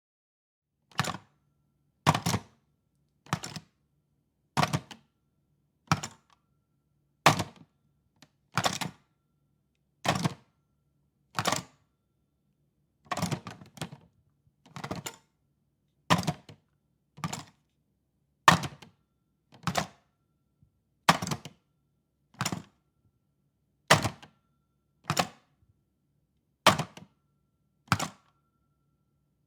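Corded telephone handset picked up from and set back down on its cradle over and over: about twenty sharp plastic clacks, one every second and a bit, some of them doubled.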